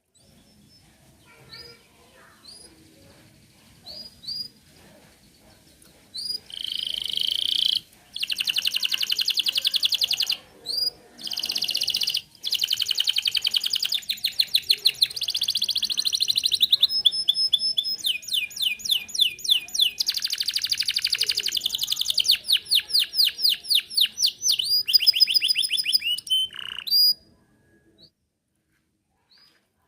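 Domestic canary singing: a few scattered short chirps, then a long song of fast rolling trills in changing phrases with brief breaks, stopping abruptly near the end.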